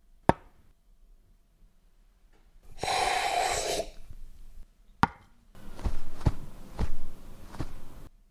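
Foley sound effects made with props: a sharp click, a brief hissing rush about three seconds in, another click, then a run of dull thumps about two a second.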